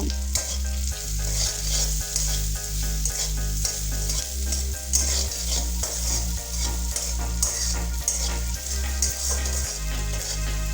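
Onion, capsicum and chilli powder frying in hot oil in a pan, sizzling steadily while being stirred, with frequent light clicks and scrapes against the pan.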